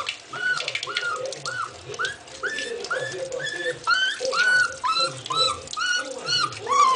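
A 50-day-old puppy whining while being bathed: a run of short high cries, each rising then falling, about two or three a second, getting louder about halfway through.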